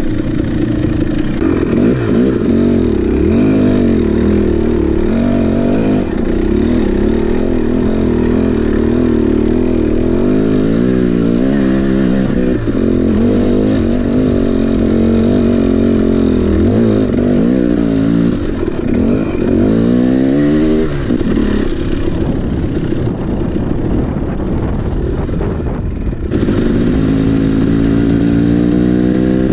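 KTM 300 two-stroke dirt bike engine on the rider's own bike, its revs rising and falling over and over as it rides the trail. Near the end the revs climb steadily as it accelerates.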